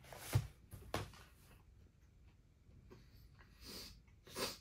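A man chewing a mouthful of a spicy chicken wrap, with four short, breathy puffs of noise: the loudest a fraction of a second in, another about a second in, and two near the end.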